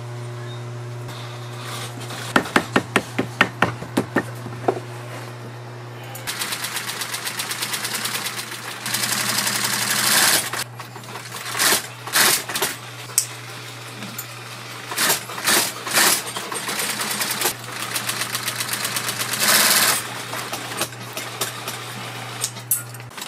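Industrial sewing machine stitching leather: its motor hums steadily while the needle runs in short bursts of rapid stitching with pauses between, after a string of slow single stitches clicking in the first few seconds.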